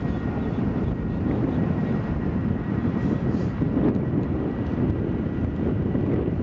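Jet engines of a KLM Boeing 737-700 (CFM56 turbofans) running as it rolls along the runway: a steady, dense rumble with a thin high whine.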